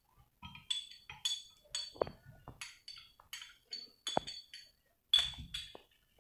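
Metal spoon clinking against glassware: a dozen or so short, ringing clinks about half a second apart, the loudest about five seconds in, with a few dull knocks. It is the sound of diced peach being spooned from a small glass bowl into stemmed wine glasses over ice.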